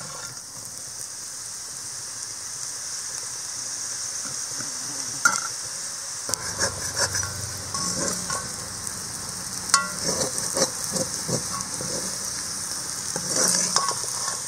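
Masala-coated potato strips sizzling in a little oil in a kadai on a low flame, a steady hiss. From about a third of the way in, a metal ladle stirring them scrapes and clinks against the pan.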